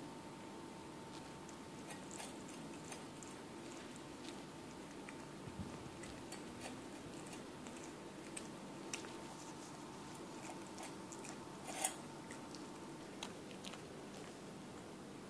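Cat eating wet food from a stainless-steel bowl: soft, irregular chewing and lapping clicks, with one sharper click about twelve seconds in.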